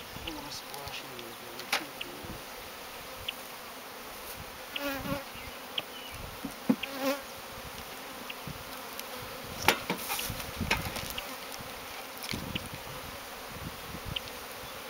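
Honeybees buzzing around an open nuc as frames of bees are lifted out and moved into a hive body, with a few sharp knocks of wooden frames and boxes being handled.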